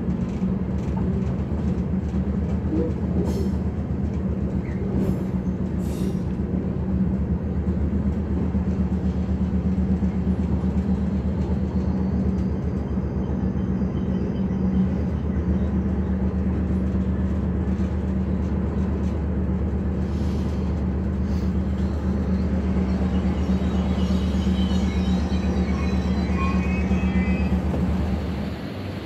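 MR-class diesel multiple unit under way: a steady diesel engine drone over rail running noise. Near the end a few faint high squeals come in and the drone falls off.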